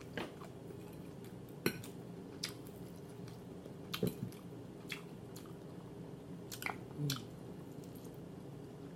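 A person chewing a mouthful of food with the mouth close to the microphone, wet clicks and smacks coming every second or two over a steady low hum.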